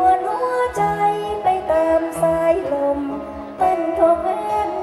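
A woman singing a Thai song into a microphone, holding long wavering notes, over backing music with a bass line and light percussion.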